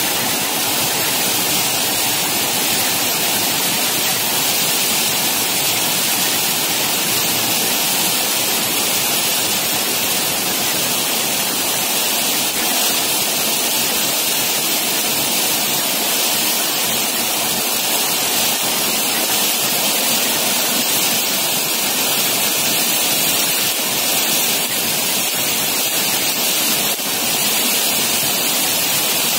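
Very heavy rain pouring down, with water streaming off the edge of an awning; a loud, steady hiss.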